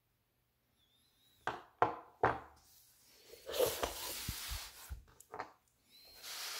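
A cloth roll-up pouch of spade drill bits handled on a wooden workbench: three sharp knocks, then a longer rustling with several more knocks as the pouch is slid across and unrolled, and another rustle near the end.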